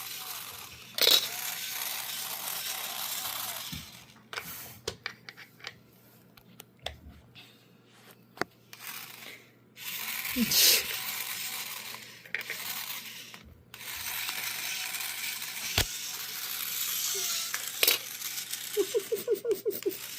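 Small plastic toy tools clicking and clattering as they are handled, with stretches of rustling packaging in between.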